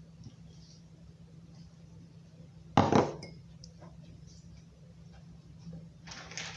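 A short, loud double clink of dishware about three seconds in, with fainter small knocks and handling noises near the end.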